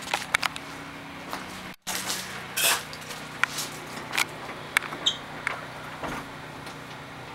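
Scattered light clicks, knocks and short scuffs of a person moving about on a hard floor, over a steady low hum. The sound drops out completely for a moment about two seconds in.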